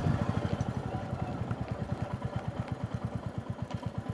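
Motorcycle engine running at low revs, its separate exhaust pulses easing off and getting quieter through the first few seconds.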